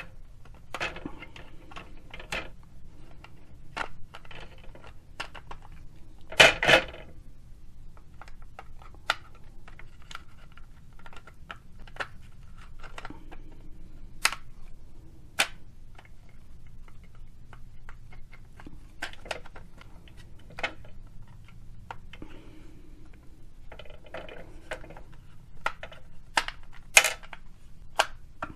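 Scattered clicks and taps of hard plastic as hands work a wheel back into the wheel well of a plastic AMT 1961 Impala model car, with one louder double knock about six seconds in and a few sharp clicks near the end.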